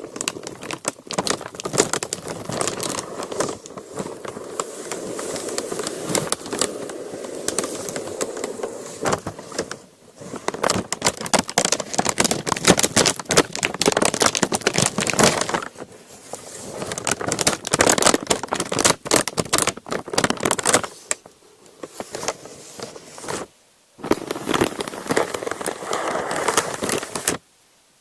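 Parchment paper being crinkled and crumpled close to the microphone: dense, continuous crackling that pauses briefly a few times, with two short silences near the end.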